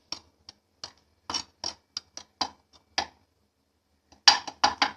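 Light, irregular clicks and clinks of a metal tawa being shaken and handled, scattered over the first three seconds. A quick run of louder clicks comes near the end.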